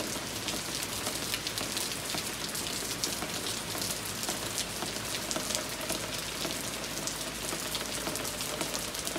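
Steady rain falling on a wet wooden deck and the trees around it: an even hiss filled with many small drop hits.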